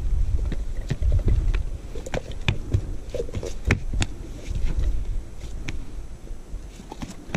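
Scattered knocks, clicks and scuffs of a freshly caught fish being handled on a dirt bank, with a knife near it, over a low rumble of wind on the microphone that eases after the first few seconds.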